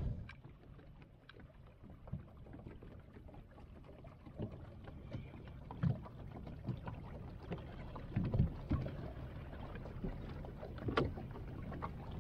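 Water lapping against a boat's hull, a steady low wash broken by scattered short knocks and thumps.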